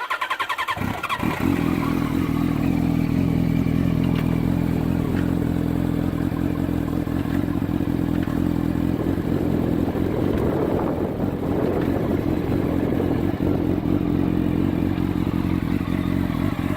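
2007 Yamaha YZF-R1's inline-four engine is cranked by its starter, catches within about a second and then idles steadily. It is the first run after an oil change, freshly refilled with 10W-40.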